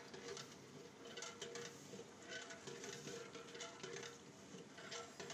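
Oil and curry masala sizzling in a large aluminium cooking pot, with faint, irregular crackles and spatters throughout.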